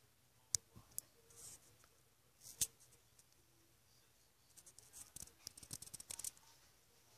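Faint handling noise: a few sharp separate clicks, then a quick run of light scratchy clicks and rustles about four to six seconds in.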